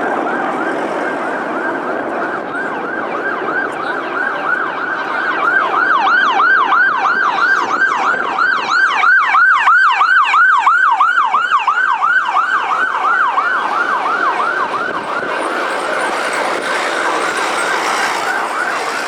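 Emergency vehicle siren in a fast yelp, its pitch sweeping down and back three to four times a second. It grows louder toward the middle and then fades.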